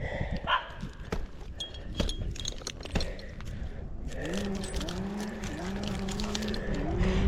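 Metal climbing hardware clinking and jangling in quick, irregular clicks, then from about four seconds in a low squeak that rises in pitch, repeated about every half second.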